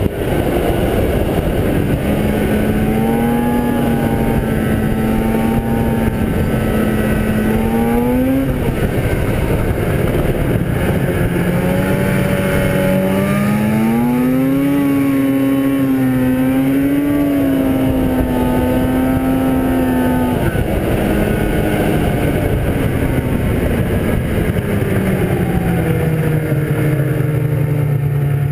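1997 Arctic Cat ZR 440 snowmobile's two-stroke twin engine running under way, its pitch rising and falling with the throttle over a steady rushing noise. The revs climb about eight seconds in and again around the middle, hold for a few seconds, then sink gradually over the last stretch.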